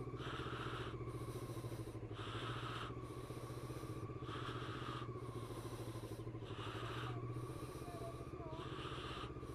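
Honda CBF motorcycle engine running steadily at low revs while the bike creeps along at walking pace, a low, even throb.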